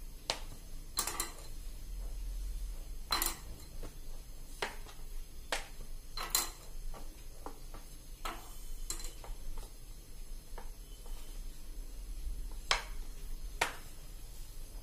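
Thin wooden rolling pin rolling samosa dough on a plastic cutting board, with irregular light clicks and knocks as the pin meets the board and the dough sheet is lifted and turned.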